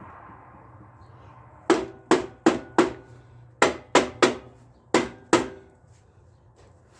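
Hammer striking metal nine times, in a run of four quick blows, then three, then two, each with a short metallic ring, during work on a worn lawn mower front axle.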